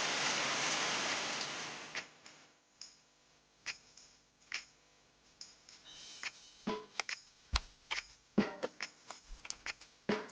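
Steady hiss of rain that cuts off about two seconds in, followed by scattered light clicks and knocks of things being handled, coming more often near the end.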